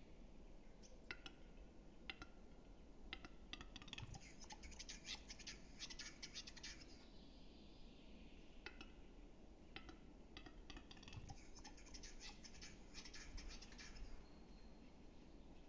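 Male western capercaillie giving its lekking display song, faint: dry clicks that come faster and run together into a rapid clicking rattle, then a short scraping, hissing phrase, sung twice.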